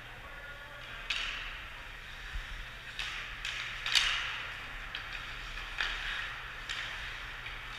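Ice hockey play in an echoing rink: half a dozen sharp clacks of sticks and puck striking ice, boards and glass, the loudest about four seconds in, over a steady hiss of rink noise.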